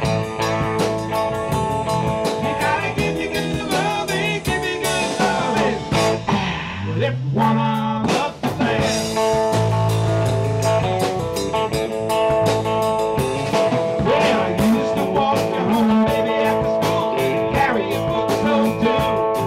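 A live rock-and-roll trio plays an instrumental stretch: electric guitar with string bends over electric bass and a drum kit. About seven seconds in, a low note slides upward.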